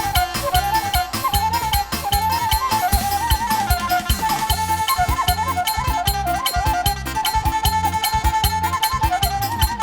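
Traditional music: an ornamented lead melody that wavers and turns, over fast, steady percussion and a bass line.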